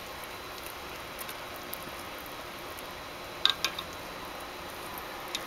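Braise of fish, pork belly and fried tofu simmering in a stainless steel pot with a steady hiss. Wooden chopsticks click sharply against the pot a few times about three and a half seconds in, and once more near the end.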